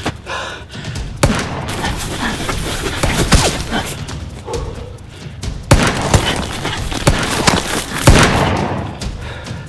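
Edited action-film fight sound effects: a run of sharp, heavy hits and thuds, the loudest about 1, 3.5, 6 and 8 seconds in, with loud rushing noise between them.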